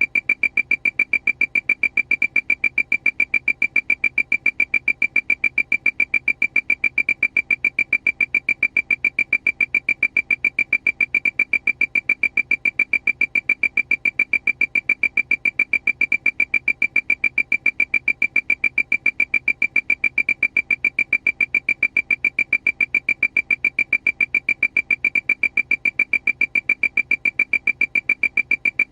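Aircraft warning alarm: a single high-pitched beep repeating rapidly and evenly, with no change in pitch or pace.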